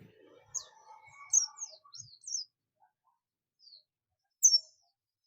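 Pleci buxtomi (a Zosterops white-eye) giving its 'ngalas' contact call: short, high, falling chirps, several in quick succession in the first couple of seconds, then single ones, the loudest near the end.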